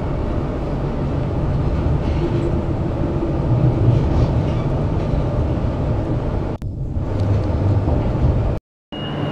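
Steady rumble and running noise of a Queensland Rail suburban train, heard from inside a carriage while it is moving. The sound cuts out completely for a moment near the end.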